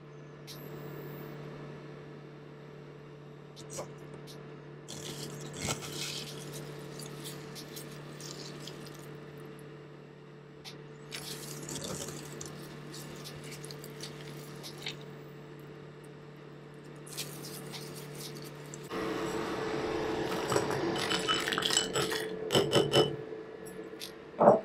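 Steady hum of an induction hob under a double boiler, with short squishing and handling noises as oil-soaked marigold petals are pressed in a steel mesh strainer. About three-quarters of the way in the hum changes and a louder clattering starts, with a sharp knock just before the end.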